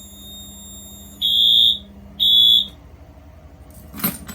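Fire alarm horn beeping in the temporal-three evacuation pattern: two high-pitched half-second beeps a second apart, after which it stops partway through the cycle. A single click comes near the end.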